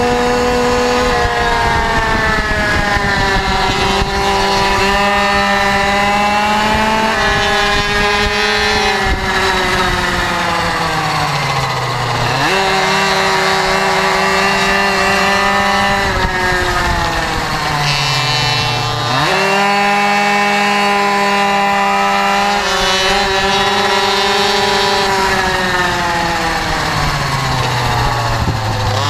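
Motorcycle engine heard onboard at speed on a race track, its note climbing and stepping through gear changes, then falling away as it slows for corners and rising again sharply on the exits, several times over. Wind rushes steadily on the microphone underneath.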